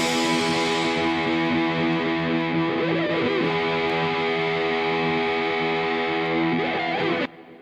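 Background music: held, distorted electric guitar chords that cut off suddenly near the end.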